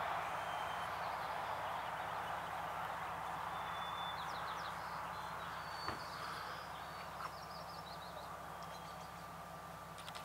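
A steady rushing noise that slowly fades, with a few faint, high bird chirps in the middle. There is a single click about six seconds in and a quick run of clicks near the end.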